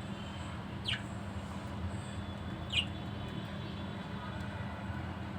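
Budgerigars giving two short, falling chirps about two seconds apart, over a steady low hum.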